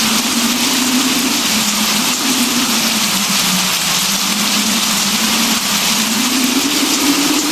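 Steady rain hiss, with a low hum under it that wavers slowly in pitch and rises near the end.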